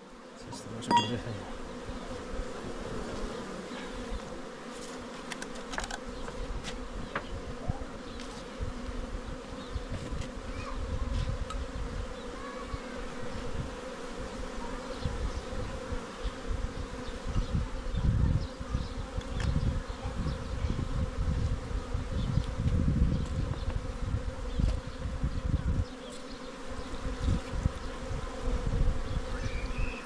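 A colony of honeybees buzzing around an open hive, a steady hum, with irregular low rumbling now and then that is strongest in the second half.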